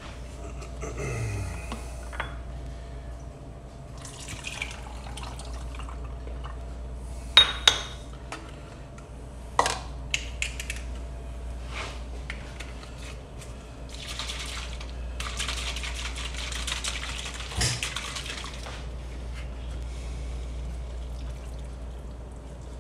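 Pineapple juice poured through a funnel into a nearly empty sauce bottle, then poured and shaken out into a pot, with splashing liquid and a few sharp clinks of the bottle and funnel. The loudest clinks come a third of the way in.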